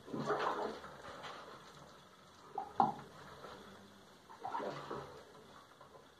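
Water splashing and wet fur being rubbed by hand as a poodle is washed beside a plastic tub, in three short bursts about two seconds apart.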